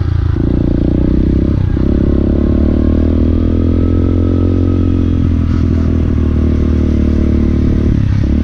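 Motorcycle engine running loudly and steadily under way, its note breaking briefly and changing pitch about two seconds in and again near the end.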